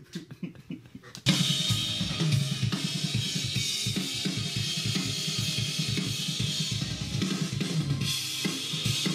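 Acoustic drum kit starting suddenly about a second in and then played hard and fast, with rapid kick and snare strokes under a continuous wash of cymbals.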